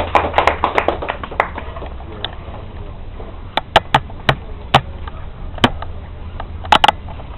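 Audience applause dying away within the first second or two, followed by a handful of scattered sharp taps and claps over a low room hum.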